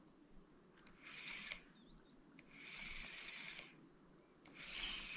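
Spinning reel being cranked in three spells of about a second each, with short pauses between, a faint mechanical whir of the reel's gears: a stop-and-go retrieve of a stickbait lure.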